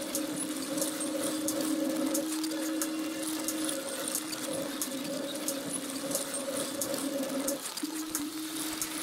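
A steady low droning hum with a fainter higher tone above it, under irregular crackling clicks; the drone dips and breaks off for a moment near the end, then returns.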